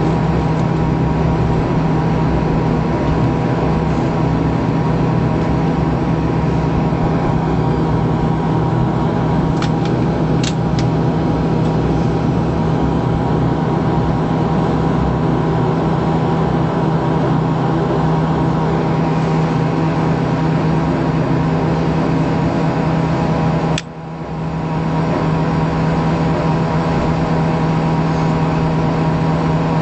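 Bombardier Q400's Pratt & Whitney PW150A turboprop and six-bladed propeller running at taxi power, heard inside the cabin as a steady drone with a strong low hum. The level drops away for a moment about three-quarters of the way through.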